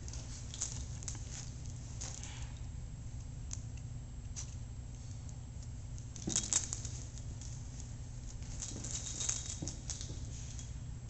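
Two small dogs scuffling over a fleece blanket: rustling fabric, scratchy paw and claw taps and small clicks, busiest about six and a half seconds in and again near nine seconds, over a steady low hum.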